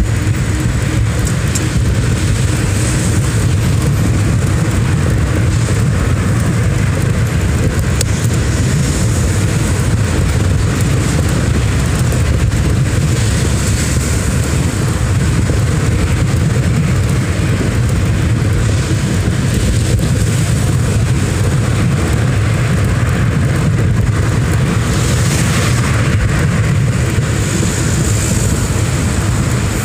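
Steady, loud low rumble of riding through traffic on a two-wheeler: wind buffeting the microphone over road and engine noise, with a hiss above it.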